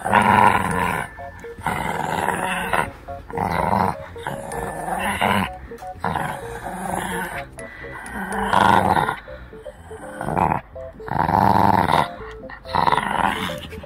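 Shih Tzu puppy growling in short bouts, about one a second, while it bites and tugs a rope toy. It is a play growl of tug-of-war effort, not real aggression.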